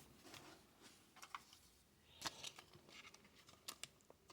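Faint handling noise of trading cards: a few soft clicks and brief rustles, with near silence between them.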